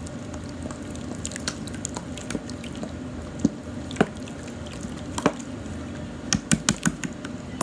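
Wet clicks and squelches of jiggly slime being squished and stirred by a small plush toy, scattered pops with a quick run of them near the end.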